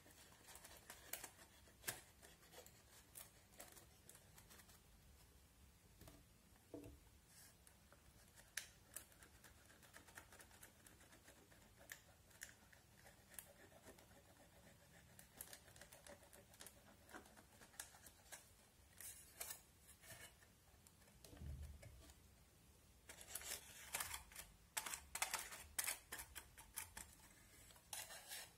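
Faint scraping and clicking of a small plastic stick digging pressed eyeshadow out of a plastic toy makeup palette, with light plastic taps. The clicks come thicker and louder for a few seconds near the end as the palette is handled.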